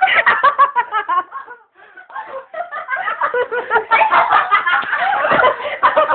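People laughing hard in quick bursts. The laughter breaks off briefly about two seconds in, then picks up again.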